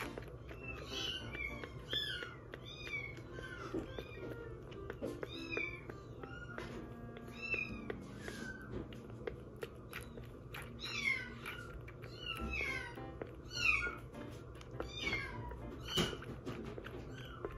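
Very young kittens mewing over and over: short, high squeaky calls that fall in pitch, often about two a second.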